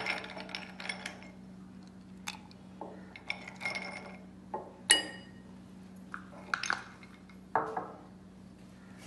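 Ice cubes dropped into a drinking glass, clinking against the glass about half a dozen times. The loudest clink, about five seconds in, rings briefly.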